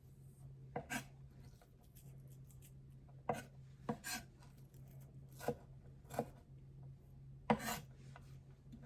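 Kitchen knife cutting celery on a cutting board: a handful of separate, unhurried strokes, each a sharp knock, spaced irregularly a second or two apart.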